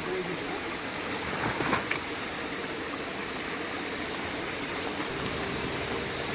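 Steady hiss of water, with a few faint ticks about a third of the way in.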